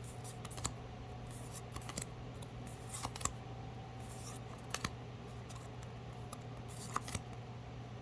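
Pokémon trading cards being handled and slid one over another: faint, scattered short swishes and clicks over a steady low hum.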